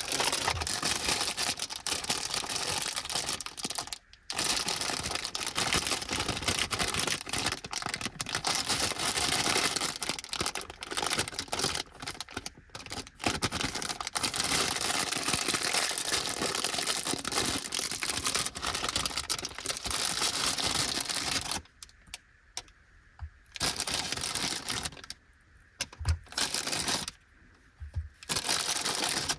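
Plastic snack bag of Anpanman Mini Snack Banana being handled and torn open, crinkling almost without a break, with a few short pauses near the end.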